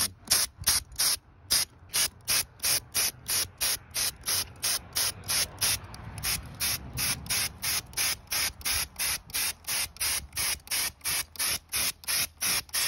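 Compressed-air spray gun spraying white gloss glaze, its hiss pulsing evenly about four times a second.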